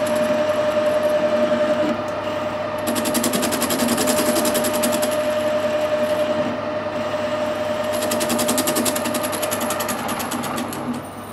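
Metal lathe turning cast iron, the insert tool taking a cut, with a steady whine from the lathe drive. A fast, even ticking comes and goes twice during the cut, and the sound falls away near the end as the cut stops.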